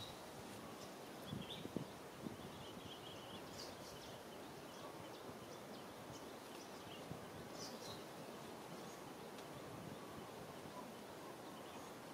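Faint outdoor ambience: a steady hiss with a few faint, short, high chirps and some soft knocks between one and two and a half seconds in, and brief faint crackles near four and eight seconds in.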